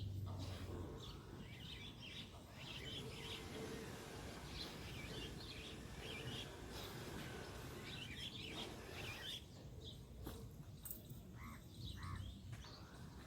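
Birds chirping in many short, separate high-pitched calls over faint, steady low background noise.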